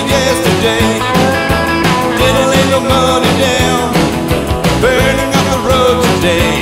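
Rock music with a singing voice over a steady beat.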